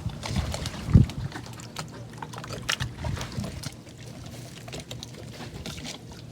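A heavy thump about a second in, then scattered light knocks and clicks over a low steady background.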